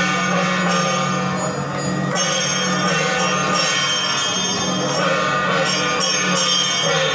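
Music with bells ringing: a steady, sustained chord of several tones, with bright jingling bells that come and go every second or two.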